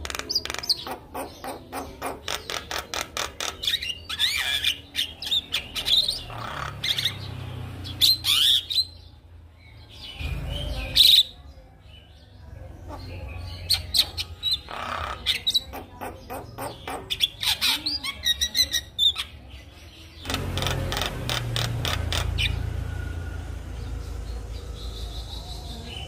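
Caged Javan myna singing a long, varied chatter: runs of rapid rattling clicks mixed with squeaky whistled notes, broken by short pauses. A low rumble sits under it about ten seconds in and again near the end.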